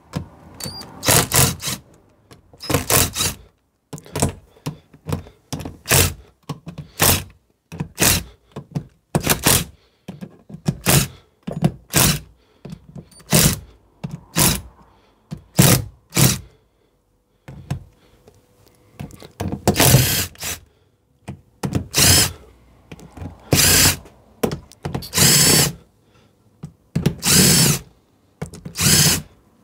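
Cordless impact wrench run in short bursts, roughly one a second, undoing the bolts on a Rover 75's 1.8 K-series cylinder head. There is a brief pause about two-thirds of the way through, and the bursts after it are louder.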